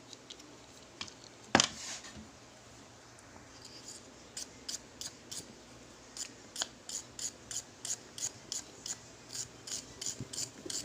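Short scraping strokes, about three a second, rubbing rust off a metal part of a nebulizer's compressor. A single clack comes about one and a half seconds in.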